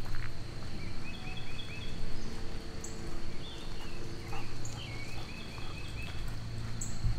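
Footsteps crunching on a gravel trail with dogs trotting alongside, under a steady high insect drone. A songbird sings a quick run of repeated notes twice.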